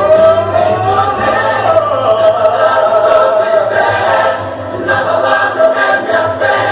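Gospel song playing, with a choir singing long held notes over the backing track.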